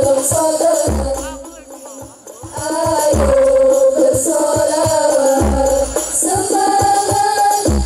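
Al-Banjari sholawat music: women's voices singing a devotional melody over interlocking hadroh frame drums (terbang), with deep bass drum strokes about every two and a half seconds. The music drops quieter about a second in and comes back at full strength about three seconds in.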